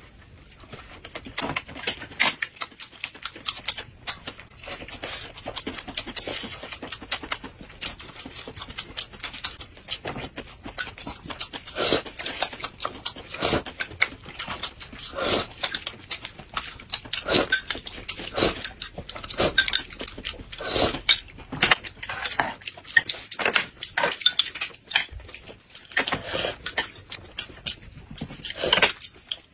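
Two people eating: chewing and sipping mouth sounds, with spoons and chopsticks clicking on glass cups and plates. It comes as many short, irregular smacks and clicks.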